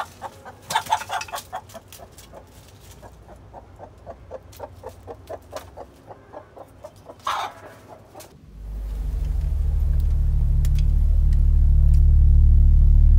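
Hen clucking in a quick steady run, about three to four clucks a second, with louder squawking calls near the start and about seven seconds in. About two-thirds of the way through, a low droning rumble comes in and grows louder.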